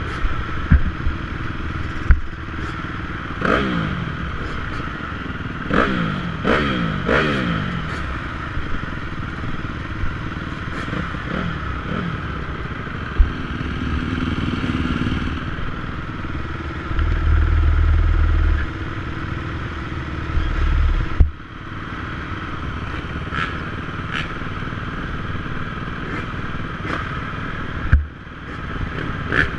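Several motocross bikes idling at the start gate, with engines blipped up and falling back a few times in the first eight seconds, and scattered sharp clicks and knocks.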